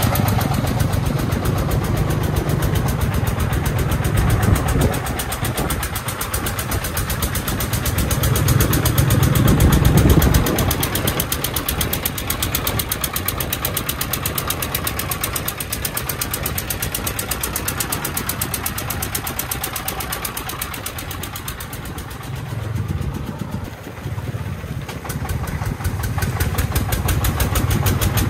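Three-wheeled công nông dump truck's 33-horsepower single-cylinder diesel engine running as the truck drives along, a steady rapid chugging. It swells louder twice in the first ten seconds and dips briefly a few seconds before the end.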